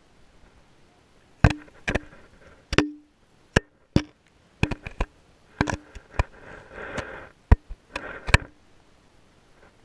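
Underwater GoPro in its waterproof housing, dangling on a string, knocking and bumping, heard from inside the case: about a dozen irregular hollow knocks, some with a short ring, starting about a second and a half in, and a brief watery swish in between.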